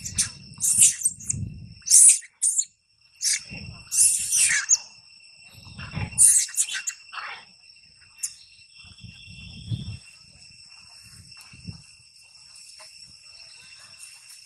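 Long-tailed macaques shrieking in short, high-pitched bursts, about eight of them through the first seven seconds, then falling quieter, over a steady high-pitched drone.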